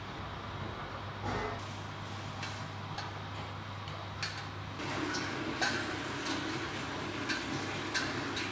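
Kitchen clatter: scattered clicks and knocks over a steady low hum. About five seconds in, a louder rushing, gurgling noise starts: cooking oil being poured from a large plastic bottle into a steel wok.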